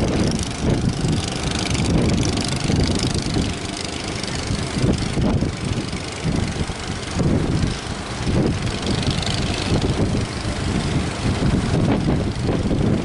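Strong wind buffeting the microphone: an irregular, gusting low rumble with a hiss that swells and fades.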